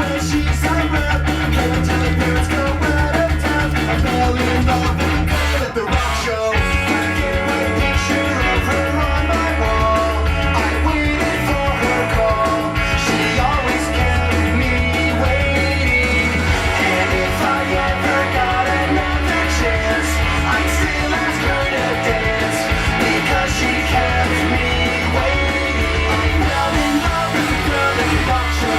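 Background rock music with guitar and singing and a steady beat.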